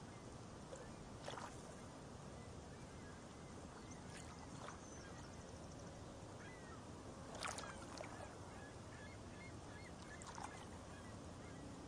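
Fast mountain river rushing over rocks: a steady rush of water with a few brief louder splashes, the strongest about seven and a half seconds in.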